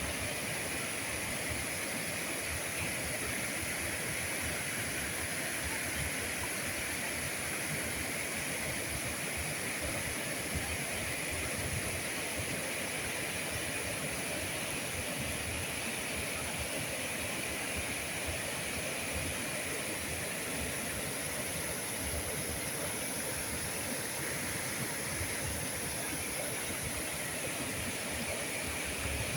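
River water pouring over a weir in a steady, unbroken rush.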